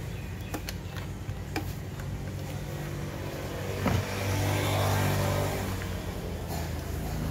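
Light clicks and taps from handling the wiring and plastic handle housing of an electric planer. Under them runs a steady low mechanical rumble that grows louder for about two seconds past the middle.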